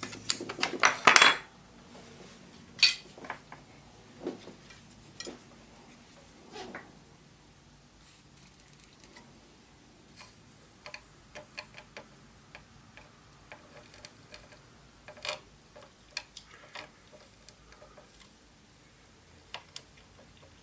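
Small metal tools clinking at an electronics bench, with a soldering iron tip tapping and scraping over the flux-coated solder pads of a PlayStation 3 motherboard. A quick cluster of loud clinks comes in the first second or so, then scattered light clicks and taps.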